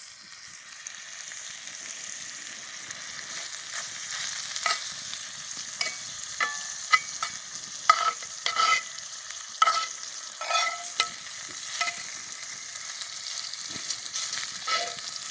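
Grouse sizzling over a campfire: a steady high hiss with scattered sharp pops and crackles, the sharpest between about 4 and 12 seconds in.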